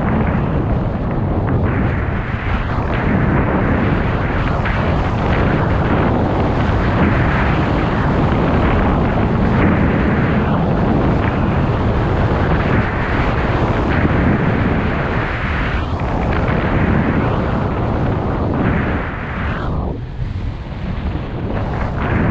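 Wind rumbling on a GoPro action camera's microphone as a skier glides downhill, mixed with the hiss and scrape of skis on packed snow. A loud, steady rush that eases briefly about twenty seconds in.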